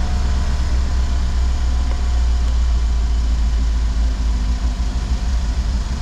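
2015 Mercedes G63's twin-turbo V8 idling steadily.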